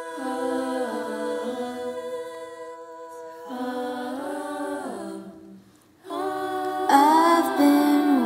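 SSAA treble-voice vocal jazz choir singing a cappella in sustained close-harmony chords that shift every second or so. The voices drop out briefly about five seconds in, then come back louder near the end.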